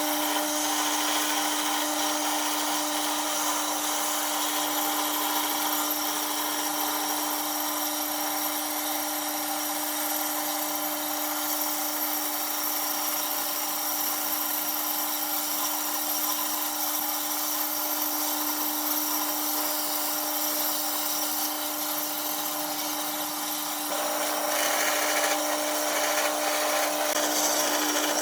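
Electric power tool running steadily with a constant hum. About 24 seconds in the sound turns louder and rougher.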